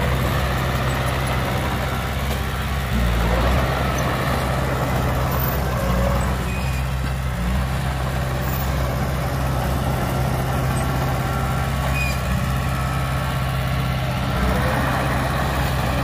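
Heavy diesel earthmoving machinery, a bulldozer and dump truck, running steadily under work. The engine swells a little about three seconds in and again near the end.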